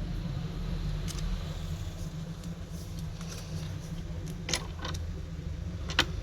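A few light clicks and taps of small metal tools and parts being handled during phone reassembly, over a steady low background hum.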